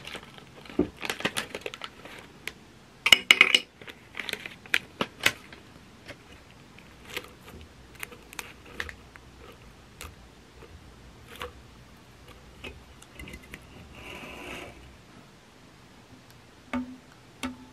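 Hands handling a fruit tea bag and a clear plastic tumbler: the wrapper crinkles and tears, then scattered light clicks and taps follow, with a short rustle a little before the end. A few soft plucked notes of music come in near the end.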